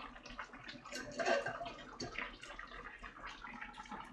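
Pot of simmering braised mackerel and kimchi being handled at the stove: a run of small irregular clicks and knocks with bubbling liquid, and a louder clatter about a second in.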